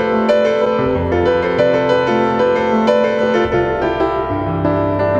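Piano music of held chords, with a deeper bass note coming in about three and a half seconds in.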